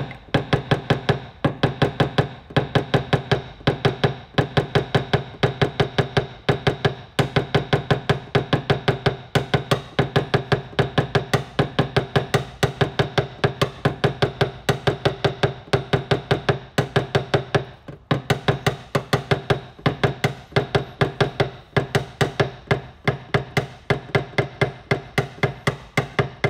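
Rapid, even taps on a PDR knockdown tool, tapping down the high spots on a car body panel after a glue pull. There are several taps a second, each with a short pitched ring, with a few brief pauses.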